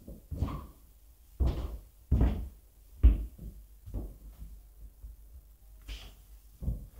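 A run of irregular, hollow thuds and knocks, about seven in all, the loudest about three seconds in.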